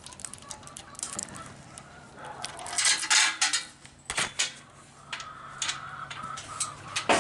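Chickens and roosters clucking in a coop, mixed with sharp metallic clanks and rattling, loudest about three seconds in.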